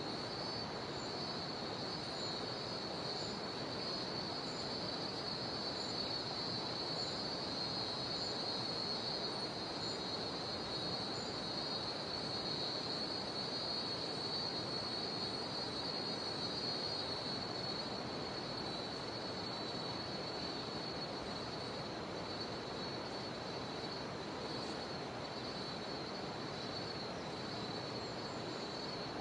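Cicadas droning in a steady, continuous high buzz over the even rush of a jungle river. A faint high chirp repeats about once a second through the first ten seconds or so.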